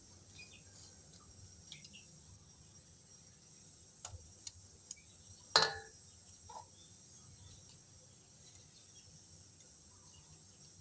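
Steady high-pitched chirring of insects in the background, with scattered light clicks and one sharp knock about five and a half seconds in.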